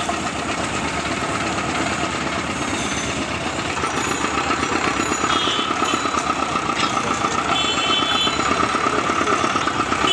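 Motor-driven sugarcane juice extractor running as cane is fed between its steel rollers, with a rapid, even pulsing and a steady whine that grows louder after about four seconds.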